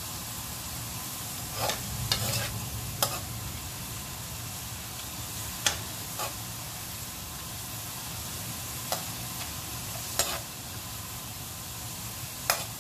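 Sliced onions with whole spices frying in oil in an aluminium kadai, a steady sizzle, with a long metal slotted spoon clinking and scraping against the pan every couple of seconds as they are stirred. The onions are at the browning stage.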